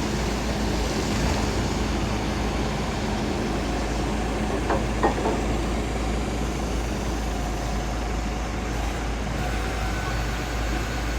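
A heavy vehicle's engine running steadily with a low rumble, with two short knocks about five seconds in.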